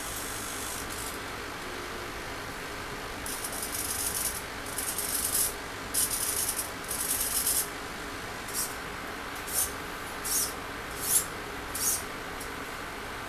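Hobby servos of a 3D-printed six-axis robotic arm whirring as the joints move. There are four longer runs of under a second each, then five short twitches about a second apart, over a steady hiss.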